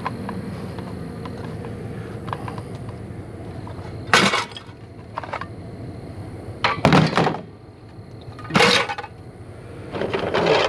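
Small pieces of scrap metal and electrical parts being tossed into a pickup truck bed piled with scrap, landing with four loud clattering crashes a couple of seconds apart.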